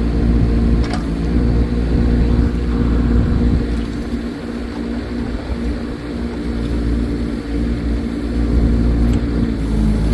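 Kubota K008-5 mini excavator's small diesel engine running steadily, easing off a little midway and picking up again near the end.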